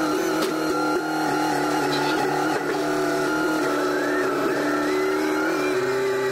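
SkyTrak telehandler's diesel engine running steadily under load as its hydraulics lift a steel beam, with a higher whine that wavers and rises in pitch from the middle on; the engine note drops a little near the end.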